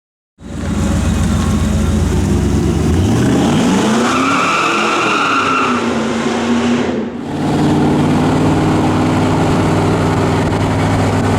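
Supercharged V8 of a 1999 Ford SVT Lightning pickup revving up, its pitch climbing over about two seconds while a high whine rides over it for a second and a half. After a brief dip it settles into a steady, loud drone.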